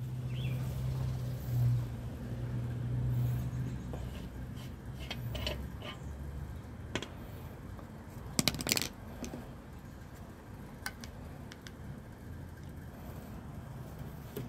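Metal clinks, taps and scrapes from handling a kerosene pressure stove, with a cluster of sharp clicks about eight seconds in. A low hum runs under the first few seconds and then fades.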